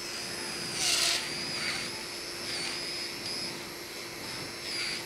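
Motorized arthroscopic burr running and shaving bone from the underside of the acromion during an acromioplasty. A high-pitched whine that dips in pitch now and then, over a steady low hum, with a brief hiss about a second in.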